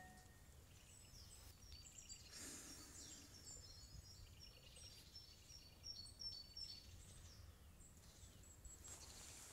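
Faint woodland birdsong: many short high chirps and quick falling whistles from several small birds, over a low steady rumble.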